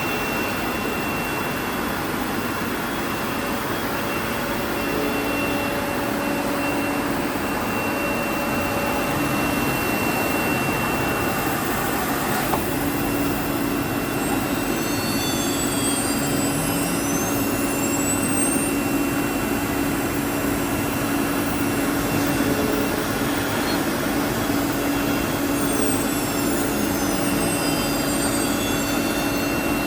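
Woodworking CNC router running: a steady whine and machine noise throughout. In the second half, several high whines rise and fall as the machine moves.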